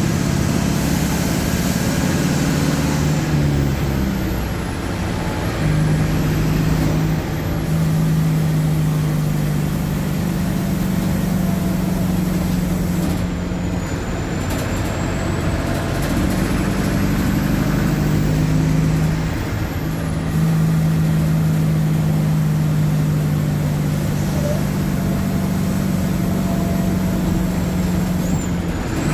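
Mercedes-Benz OF-1722M bus's four-cylinder turbodiesel engine running under way, its pitch holding steady for stretches, stepping down about five seconds in and again around twenty seconds, and rising again near the end. A faint high whine glides up and down over it.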